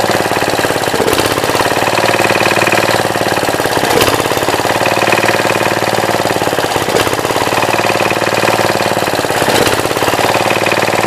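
Gravely Commercial 10 tractor's single-cylinder engine running with an even, rapid beat that dips briefly about every three seconds.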